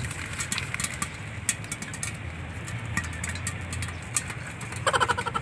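Popcorn kernels popping in a covered aluminium pot over a wood fire: scattered sharp pops over a steady low rumble. A short high-pitched, voice-like sound comes near the end.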